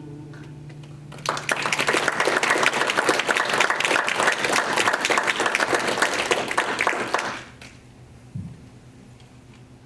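Small audience applauding at the end of a song, starting about a second in and stopping after about six seconds. Before it the last acoustic guitar chord fades out.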